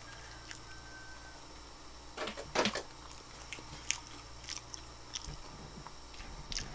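Close-miked chewing of air-fried chicken wings: scattered small wet mouth clicks, with a louder cluster of bites about two and a half seconds in.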